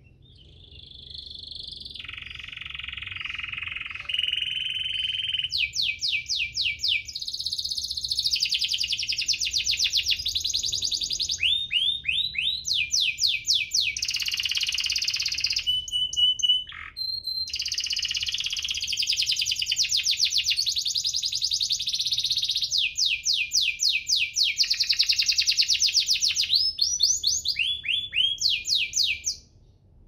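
Domestic canary singing one long song of rapid rolling trills and repeated chirping notes, with a brief break a little past the middle. The song stops just before the end.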